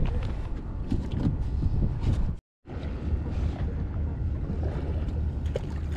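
Steady low rumble of a boat at sea, mixed with wind buffeting the microphone. It drops out abruptly to silence for a moment about two and a half seconds in.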